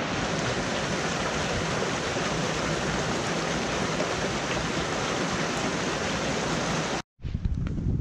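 Small cascade on a rocky woodland stream, water rushing steadily. It cuts off suddenly about seven seconds in, and low wind buffeting on the microphone follows.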